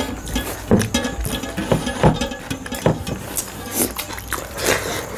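Close-up eating sounds: irregular short slurps, smacks and clicks as food is eaten.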